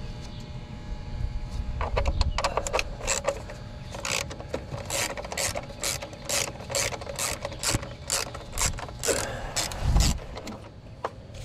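Socket ratchet wrench clicking in a steady run, about two to three clicks a second, as bolts are backed out, with a low thump near the end.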